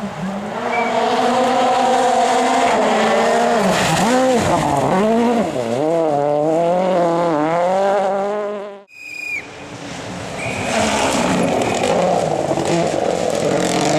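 Rally car engines at full throttle on a special stage. One car comes on loud, its revs rising and dropping rapidly several times as it shifts and lifts. The sound then cuts off abruptly and a second car approaches, its engine building again.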